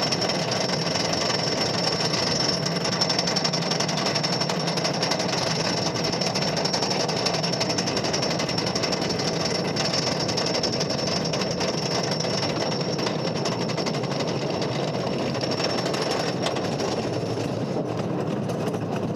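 Switchback wooden roller coaster train rattling steadily on its track, a rapid continuous clatter with a faint high whine over it.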